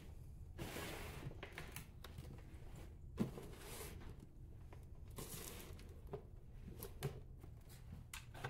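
Hands mixing and crumbling damp organic potting mix in a plastic tub: faint, irregular rustling and crunching with a few light clicks.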